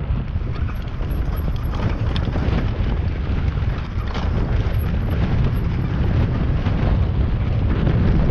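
CFMOTO 520S ATV engine running under way, with heavy wind buffeting on the microphone.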